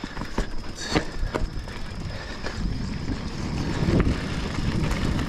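Mountain bike riding over a sandy trail with tree roots: a steady rumble of tyres and wind on the action camera's microphone, with scattered clicks and knocks from the bike as it goes over bumps, getting louder toward the end.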